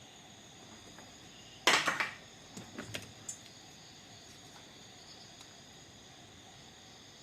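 A brief loud clatter about two seconds in, followed by a few lighter clicks, over a steady high chirring of crickets.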